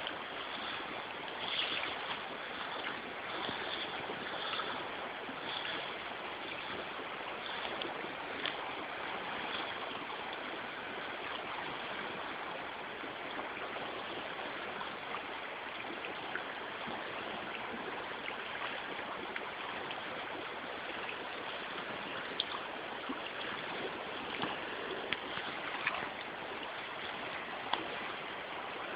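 Steady rush of a shallow river current running over stones, with a few faint clicks now and then.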